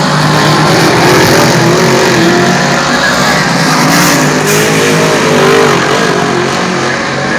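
Several dirt-track modified race cars running at race pace, engine pitch rising and falling as the cars lift for the turns and accelerate down the straights.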